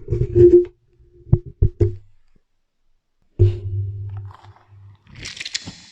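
Close-miked wet fruit sounds run through a heavy echo effect. Low hums and a few clicks come first, then a pause, then another low hum, and near the end a wet, squishy crackle.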